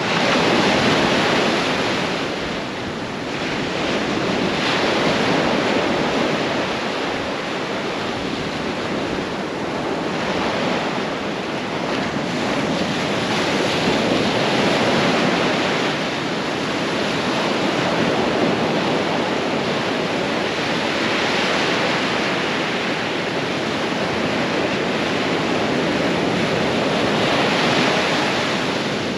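Ocean surf breaking close by and washing up the sand, swelling and easing every few seconds.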